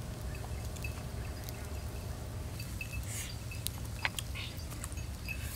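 Small clicks, taps and short scrapes of a knife cutting a lime and of things set down by a coconut-shell bowl, over a steady low rumble. Faint short high chirps come now and then.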